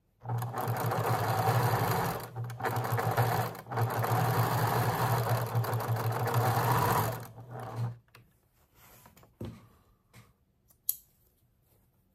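Domestic electric sewing machine stitching a seam through a patchwork block, running steadily for about seven seconds with two brief pauses, then stopping. A few light clicks follow.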